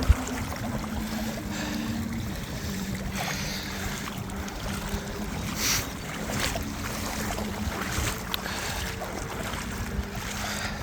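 Wellington boots wading through shallow floodwater, with splashing and sloshing steps. Wind buffets the microphone, and there is a sharp knock at the very start.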